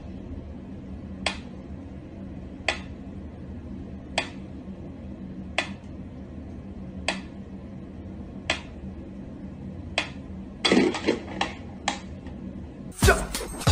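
Mechanical metronome ticking slowly and evenly, one sharp click about every second and a half as its pendulum swings. Near the end a quick run of clicks and knocks breaks in, followed by a louder clatter.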